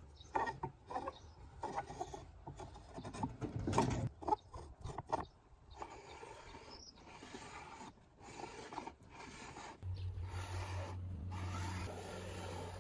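Wooden bookbinder's plough slid back and forth along a lying press, its blade and wooden cheeks scraping in irregular rasping strokes. A steady low hum comes in near the end.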